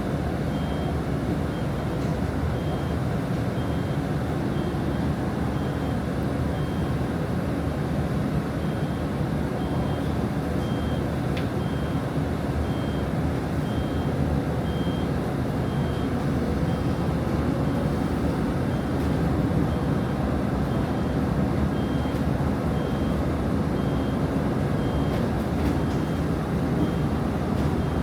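Interior of a moving city bus: steady engine and road noise, with a high electronic beep repeating about once a second.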